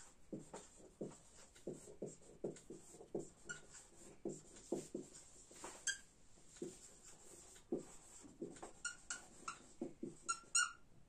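Marker pen writing on a whiteboard: a steady run of short scratching strokes, with a few brief high squeaks scattered through, the sharpest near the end.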